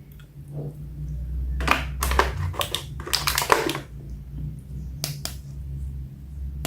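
Handling noises over a low steady hum: sharp clicks and short crinkling bursts, typical of a plastic action figure and its packaging being handled, with two separate clicks about five seconds in.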